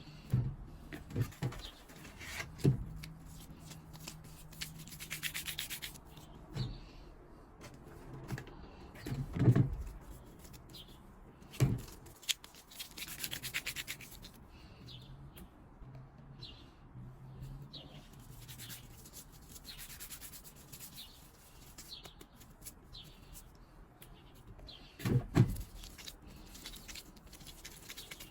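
Hands rubbing and rolling soft, floured yeast dough into balls, in repeated stretches of a second or two. Dull thumps come now and then as pieces are pressed or set down on the tray, the loudest about a third of the way in and near the end.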